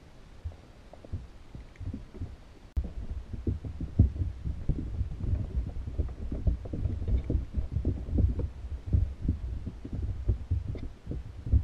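Muffled, irregular low thumps and knocks heard through a GoPro's waterproof housing under shallow water, growing louder and busier about three seconds in, with a few faint ticks.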